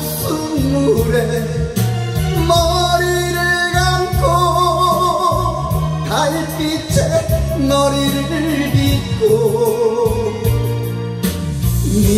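A man singing a slow Korean trot ballad into a karaoke microphone, holding long wavering notes with vibrato over a karaoke backing track with a steady bass line.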